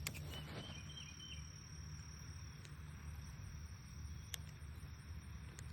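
Faint outdoor ambience: a steady high-pitched insect drone over a low wind rumble, with a few short chirps about a second in and a few scattered clicks.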